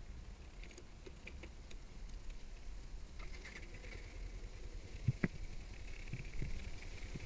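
Quiet clicks and light taps from handling a parked motorcycle: the key working in the ignition and a hand on the handlebar grip, with a sharper click about five seconds in. The engine is not running.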